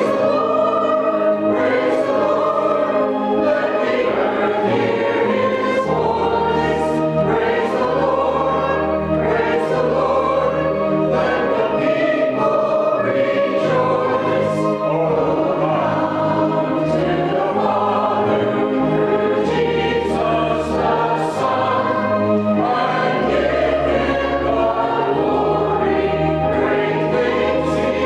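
Small mixed church choir of men and women singing a sacred song together, over an accompaniment of held low bass notes that change every second or two.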